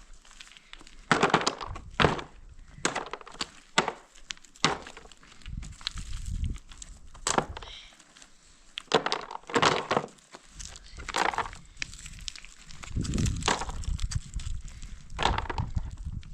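Irregular knocks, thuds and cracks, about a dozen, mostly a second or two apart, some with a low thud beneath.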